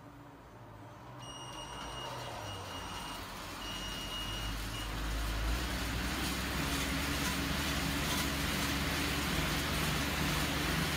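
Assault AirBike Classic's 25-inch steel fan whooshing as the rider starts pedalling, the air rush building over the first five seconds or so and then holding steady. A series of short, high electronic beeps from the bike's console sounds in the first few seconds.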